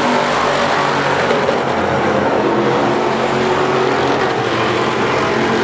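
Dirt modified race cars running at speed around the track, several V8 engines blending into a steady, loud din.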